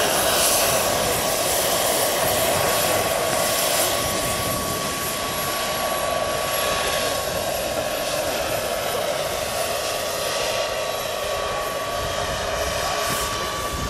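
Small turbine engine of a large-scale RC AgustaWestland AW139 model helicopter running in flight: a steady high whine over the rush of the rotor blades, a little quieter after the first few seconds.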